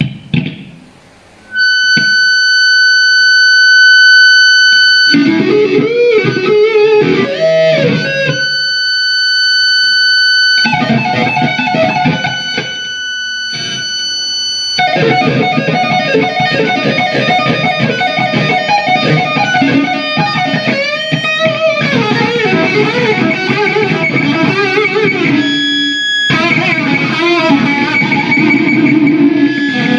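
Replica Gibson Les Paul Custom played with distortion through a Marshall amp: lead phrases with string bends, broken several times by a steady high-pitched whistle held on its own between phrases. The guitar is not yet set up or shielded, and the player says it hums with distortion on and calls it unplayable.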